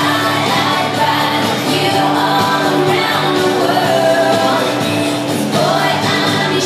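A recorded song with singing, played loud over the hall's sound system.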